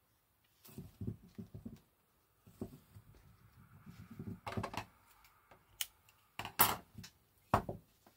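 Clicks, light knocks and rustling of small craft supplies being handled on a table as thread is fetched for hand-stitching, with a few sharper clicks in the second half.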